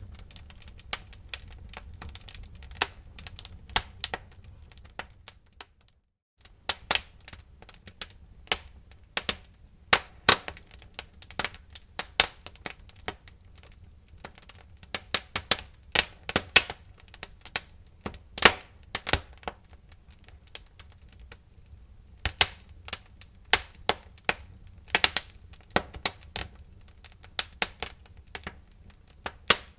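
Fire in a fireplace crackling and popping: irregular sharp snaps, several a second, over a low steady rumble of the flames. The sound cuts out for a moment about six seconds in.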